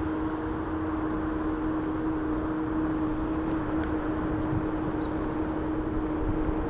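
Electric scooter riding at a steady speed: a steady hum over wind rumble and road noise.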